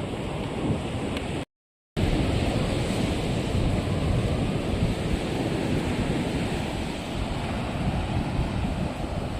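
Ocean surf washing on a beach with wind buffeting the microphone, a steady rushing noise. It cuts out completely for about half a second around one and a half seconds in, then resumes.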